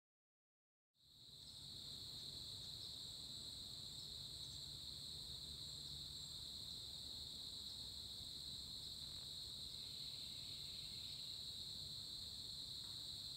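Faint, steady chorus of insects with a continuous high-pitched trill, starting about a second in after silence.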